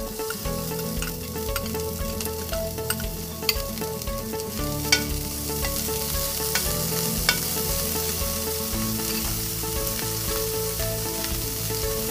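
Diced onion and oregano sizzling in hot oil in a metal frying pan, with a metal spoon stirring and tapping against the pan a few times. Soft background music with slowly changing notes plays underneath.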